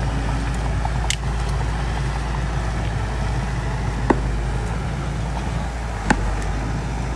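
Bulldozer's diesel engine running steadily under load, with three short sharp knocks about one, four and six seconds in.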